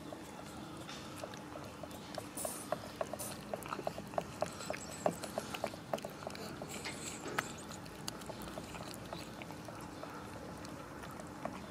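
Cats chewing and smacking on wet meat food: a quick run of small wet clicks, a few each second, thickest through the middle.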